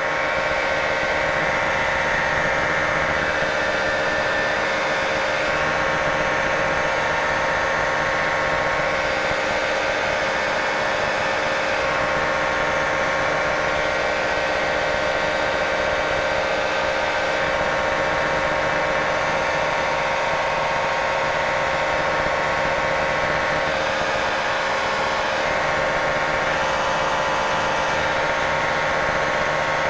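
Light aircraft's piston engine and propeller running steadily in flight, heard inside the cockpit as a constant drone.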